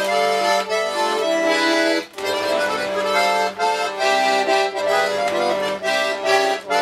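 A small "Ogonek" button accordion (bayan) played: a tune in chords over a sustained bass note, with a brief break about two seconds in. The instrument is badly worn and awaiting repair, with its reeds, bellows and casing in poor shape.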